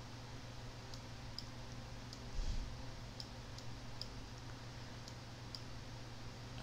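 Computer mouse clicking: about eight short, scattered clicks over a low steady electrical hum. A brief, slightly louder noise comes about two and a half seconds in.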